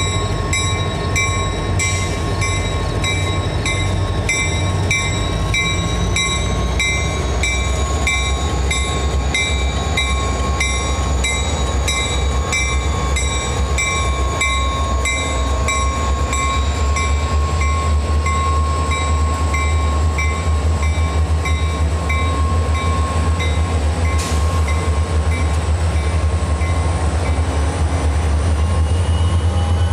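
A lashup of several EMD diesel-electric freight locomotives passes at close range. Their engines give a steady deep rumble, under high whining tones with a regular rapid ticking.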